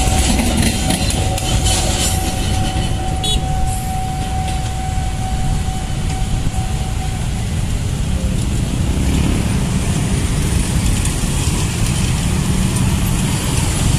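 Passenger train coaches rolling past on the rails and moving away, with a steady high tone fading out about halfway through. After that, many motorcycle engines run and pull away as traffic crosses the tracks.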